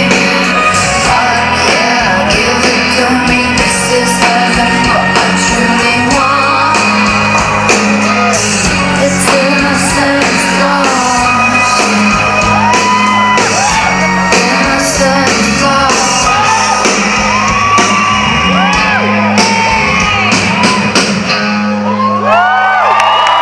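Live band in a concert hall, with steady bass and strings, playing under singing while the audience screams and whoops over the music. Near the end the band drops away and the crowd's cheering takes over.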